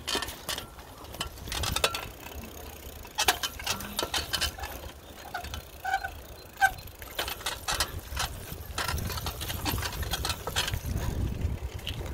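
Mountain bike rattling and clicking as it is ridden over a rough path, with irregular knocks from the frame and chain. A few short high chirps come about halfway through, and wind on the phone's microphone rumbles more strongly near the end.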